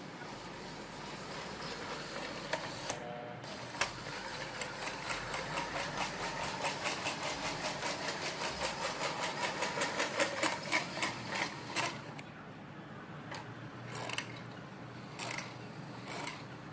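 Lionel Gold Rush Special toy train running on its track with a rhythmic clicking that quickens, then stops about twelve seconds in, leaving a few scattered clicks. It runs haltingly because, as the owner finds, its drive rods and works have dried out and need lubrication after sitting unused for decades.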